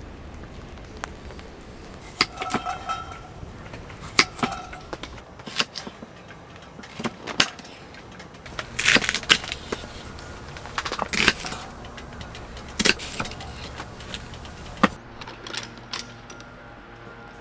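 Camping gear being handled: a series of irregular knocks and clicks, with a couple of short ringing clinks in the first few seconds, over a faint steady hiss.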